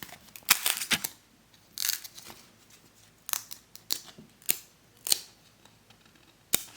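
Baseball trading cards being handled one by one out of a freshly opened pack: a series of short, sharp card snaps and clicks, about eight of them at uneven intervals, with a brief soft rustle about two seconds in.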